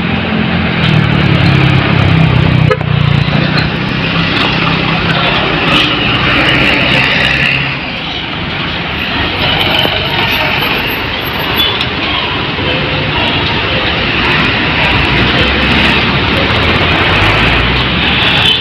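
Heavy vehicles passing close by on a busy road. A large engine rumbles loudly for the first several seconds, then dies away, leaving steady traffic and tyre noise.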